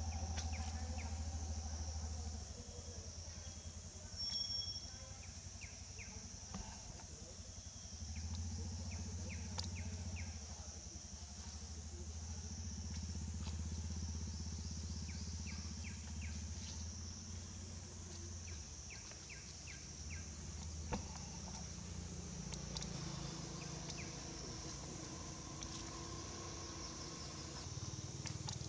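Outdoor ambience: a steady high insect drone over a low engine-like hum, with short chirps in small groups every few seconds.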